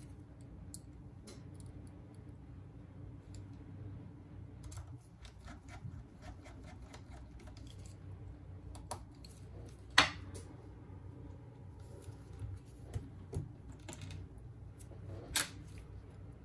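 Small repair tools and parts of a Samsung Galaxy Note 8 being handled: scattered light clicks and taps, with two sharper clicks about ten and fifteen seconds in, over a low steady hum.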